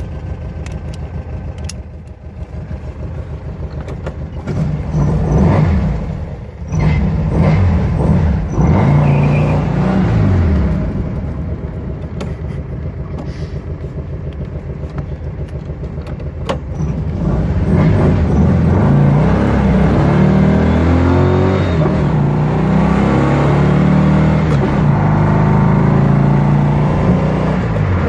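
Air-cooled VW flat-four, rebuilt to 1800cc, accelerating hard through the gears, heard from inside the car. The revs climb about four seconds in, fall at a gear change and climb again, ease to a steadier run, then pull hard again, louder, with repeated climbing sweeps through the last ten seconds.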